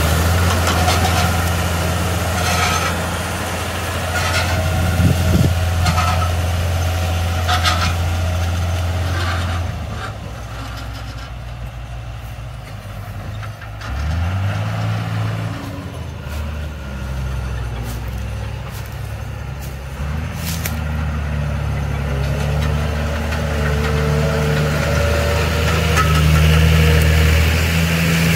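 John Deere 3350 tractor's diesel engine running steadily as it pulls a disc harrow through the soil, with a few sharp clanks in the first several seconds. The engine drops away about a third of the way in as the tractor moves off, then grows louder again toward the end as it comes back close.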